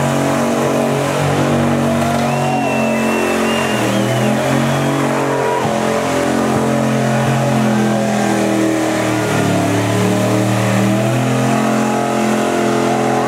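Muscle car engine held at high revs through a burnout, its pitch stepping up and down as the throttle is worked while the rear tyres spin in clouds of smoke.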